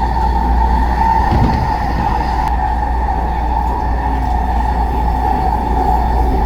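Vancouver SkyTrain car running along the track, heard from inside: a steady low rumble with a constant high whine.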